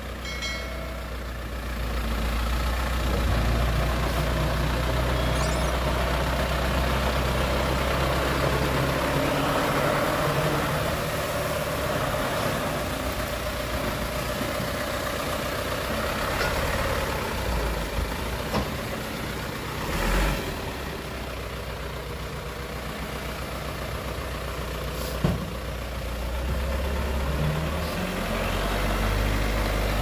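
Hyundai dump truck's engine running steadily, its low note shifting a few times, with a few short knocks or clanks near the middle.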